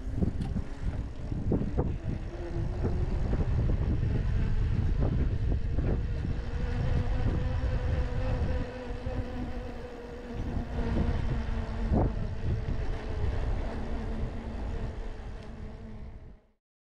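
Wind rumbling on the microphone of a camera riding along on a bicycle, with tyre noise from the paved path and scattered clicks and rattles from the bike, over a faint steady hum. The sound cuts off suddenly near the end.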